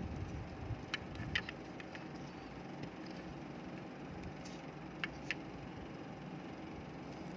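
A few light clicks and taps from handling a computer mouse and its plastic parts, in pairs about a second in and about five seconds in, over a steady low background hum.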